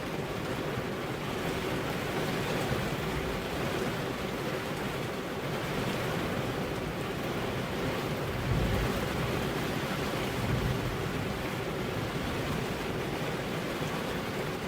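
Heavy rain falling steadily, an even dense hiss. Two brief low swells rise out of it, about eight and a half and ten and a half seconds in.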